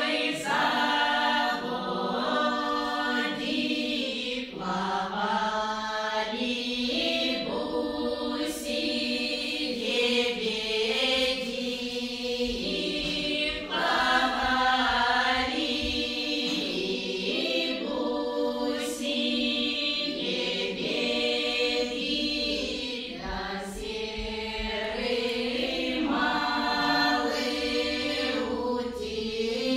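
Russian women's folk ensemble singing a folk song together in several voices, unaccompanied, in continuous sung phrases.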